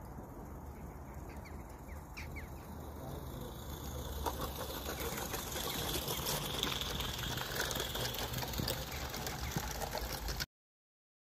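Small live-steam garden-railway locomotive and its train running past close by, a rapid clicking chatter of wheels and motion on the track, growing louder as it nears about four seconds in. The sound cuts off suddenly near the end.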